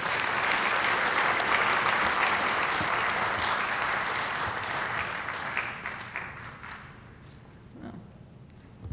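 Audience applauding, full at first and dying away about six seconds in to a few scattered claps. A single knock sounds near the end.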